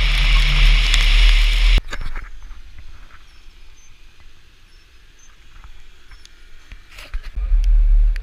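Wind buffeting and road noise on a GoPro mounted on a moving Chevy Suburban, a loud low rumble that cuts off suddenly about two seconds in. Quieter outdoor sound of the vehicles driving on a wet dirt road follows, and the rumble returns near the end.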